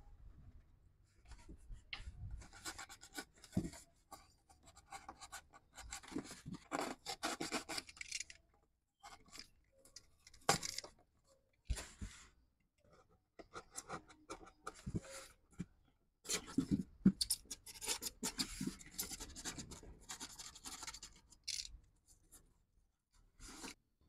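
Pen and utility-knife blade working a polystyrene foam box: the pen tracing circles, then the blade cutting round holes through the foam. It comes as bursts of scraping strokes, each lasting from a moment to a few seconds, with short gaps between them.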